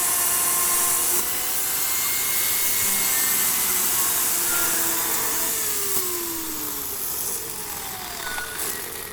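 Ryobi RCS2340B 2300 W corded electric chainsaw running at full speed, its motor whine dropping in pitch a few times and the sound fading over the last few seconds.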